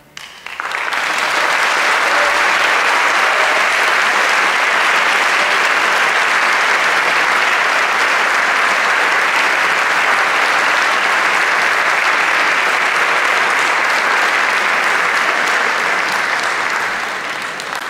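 Audience applauding. It breaks out about half a second in, right after the string orchestra's final chord, builds to full strength within a second or two, holds steady, and begins to die away near the end.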